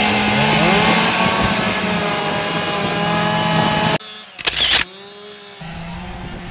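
Chainsaws running and revving as they cut wood, their pitch rising and falling again and again. About four seconds in the sound cuts off abruptly, with a short loud burst. A saw then runs more quietly and steadily.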